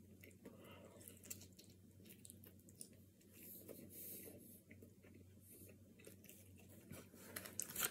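Faint chewing of a mouthful of thin-crust pizza, with scattered soft mouth clicks.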